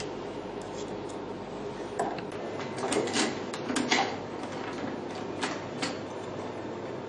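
Scattered light clicks and knocks of parts being handled and fastened while PDT light arms are fitted into a beauty machine, over a steady background hiss.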